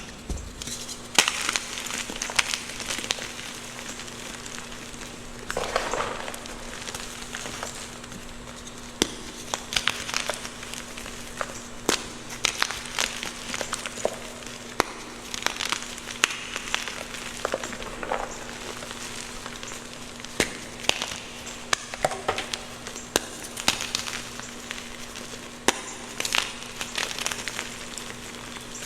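Blocks of gym chalk crushed and crumbled close to the microphone: irregular crunchy crackles and sharp snaps, with a faint steady hum underneath.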